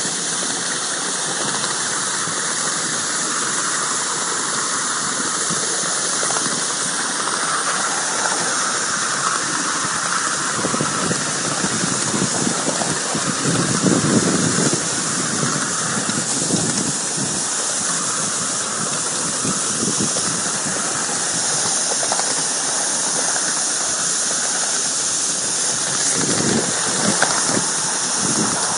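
5-inch gauge C2 Atlantic live-steam locomotive running, with a steady hiss of escaping steam. A rougher, louder patch of exhaust beats comes about halfway through and again near the end.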